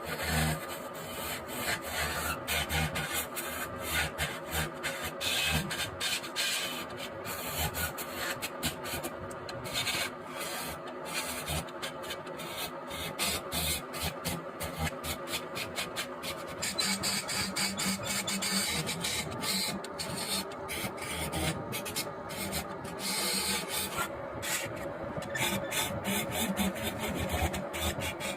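Wood lathe running while a turning tool cuts a spinning bed-leg spindle: a continuous rasping scrape with fast, irregular clicks.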